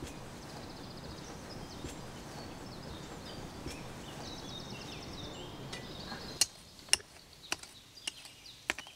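Birds chirping over a steady outdoor background hiss. About six seconds in, the background drops away and five sharp clicks follow, roughly every half second: a hand trowel striking into garden soil.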